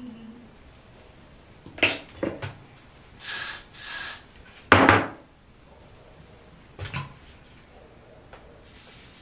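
Handling sounds of hair-styling tools: a few sharp clicks and knocks, two short hissing bursts, and one louder knock-and-rustle about five seconds in.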